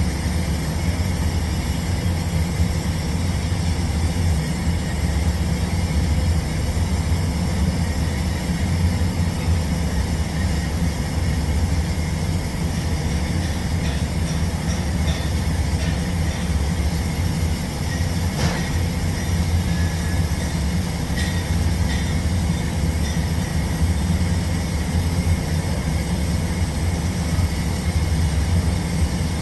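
A steady, loud low mechanical drone with a constant hiss above it, and a few faint ticks past the middle.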